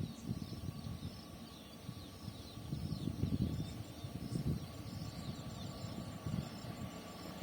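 Outdoor ambience: small birds chirping over and over in quick falling notes above an uneven low rumble that swells and fades.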